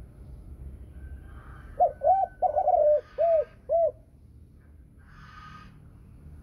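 Spotted dove cooing: one phrase of about five or six short, rounded coos in quick succession, starting about two seconds in. It is the deep 'thổ sấm' style of call prized by Vietnamese dove keepers.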